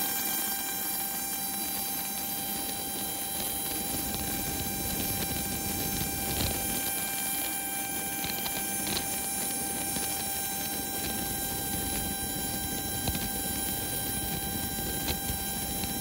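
An Embraer jet's auxiliary power unit (APU) running nearby: a steady whine of several high, unchanging tones. Underneath is the low rumble of an Airbus A320's engines on its takeoff roll, which fills in after a couple of seconds.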